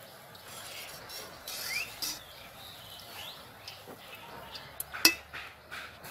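A perforated steel skimmer scraping and clinking against an aluminium kadai as it lifts a frying malpua out of hot oil, over a light sizzle of the oil. A single sharp metal clink about five seconds in is the loudest sound.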